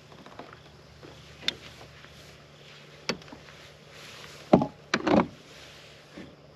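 A handful of separate hard knocks and bumps on a kayak, with the loudest cluster of two or three coming about four and a half to five seconds in.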